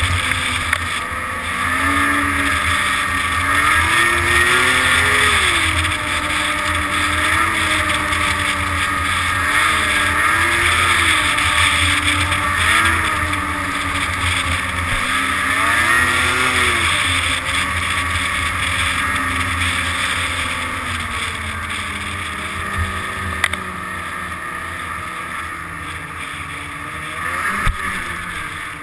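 Snowmobile engine running under way, its pitch rising and falling as the throttle is worked, over a steady hiss.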